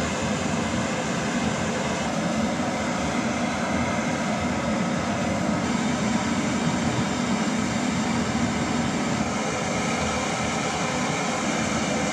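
Gas torch flame roaring steadily as it heats a driveshaft U-joint yoke, softening the plastic injected into the stock joint that holds it in place so the joint can be pressed out.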